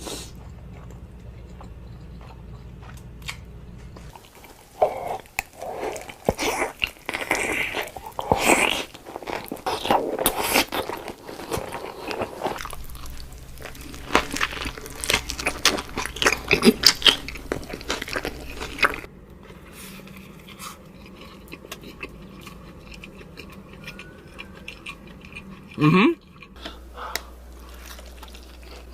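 Close-miked eating: big bites and chewing, with loud, dense crunching through the middle and quieter chewing later, broken by one short loud sound.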